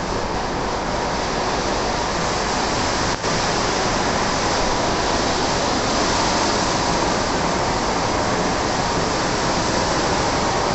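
WashTec SoftCare 2 Pro rollover car-wash gantry working over a foam-covered car: a steady rush of water spray mixed with the gantry's machinery noise.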